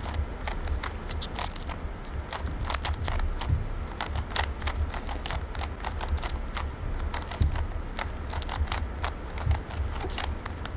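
GAN 356M magnetic speed cube being turned quickly, its layers clicking several times a second as the magnets snap each turn into place, over a low rumble.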